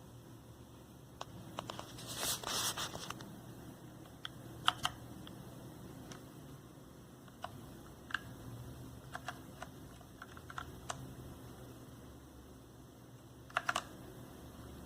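Keys on a computer keyboard being pressed: sparse, irregular key clicks, with a short flurry of keystrokes about two seconds in and another brief burst near the end.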